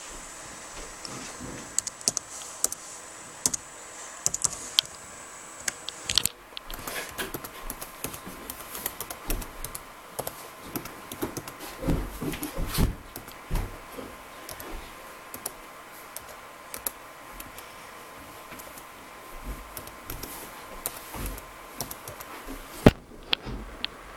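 Typing on an HP Compaq 6715s laptop keyboard: a long run of irregular key clicks as a wireless network key and its confirmation are keyed in, with one sharper tap near the end.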